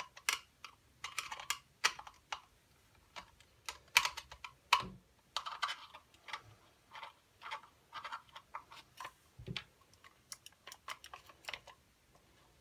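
A screwdriver backing small screws out of the plastic housing of an LED disco light bulb, then the plastic casing being handled. It sounds as a run of irregular light clicks and taps.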